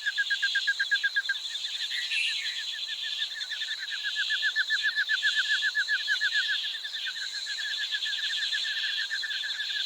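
Fast, unbroken chirping from wildlife, many short high chirps a second that swell louder in places, over a steady high-pitched hiss.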